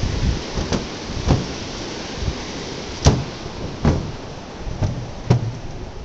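Steady rush of whitewater from the river and waterfall in the gorge below, broken by about six irregular thumps, the sharpest about three and five seconds in.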